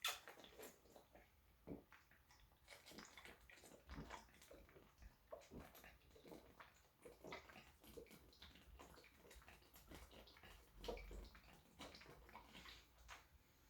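Near silence, with faint scattered clicks and light taps throughout and a slightly stronger soft knock about eleven seconds in.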